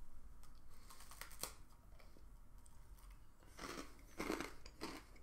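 Faint crunching and chewing of a crisp okoshi, a Japanese puffed rice bar: a few light crackles at first, then louder crunches about three and a half seconds in and near the end.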